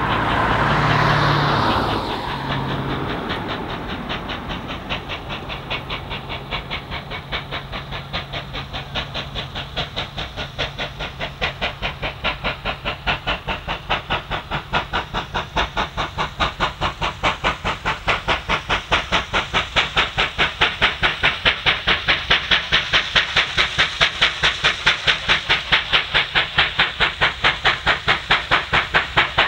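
Steam locomotive 3801, a C38 class Pacific, working a train as it approaches: steady, even exhaust beats at about three a second, growing louder as it nears. A loud hissing burst in the first two seconds.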